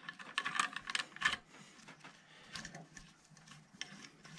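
Radius rod axle collar and nut being spun by hand onto a threaded radius rod: light metallic clicks and rattles, busiest in the first second and a half, then sparser.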